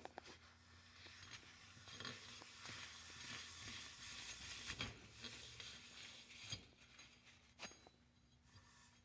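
Front wheel hub bearing being turned by hand, giving a faint, rough rasping from inside it: the wear that causes the wheel's rumble.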